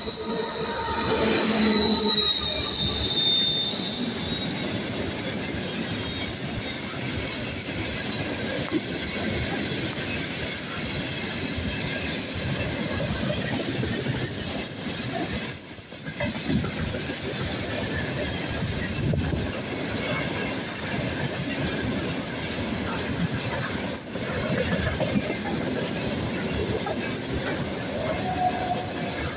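2TE116 twin-section diesel locomotive passing at speed, loudest about two seconds in, when a high whine drops in pitch as it goes by. Then a long train of loaded tank cars rolls past with a steady rumble of wheels on rail and clatter over the rail joints.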